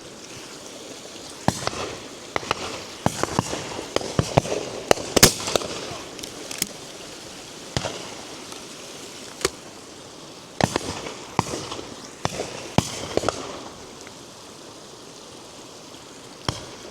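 Shotguns firing from a line of guns on a driven pheasant and partridge shoot: many sharp shots at irregular intervals, some nearer and some distant, in two busy spells with a lull between and a few more near the end.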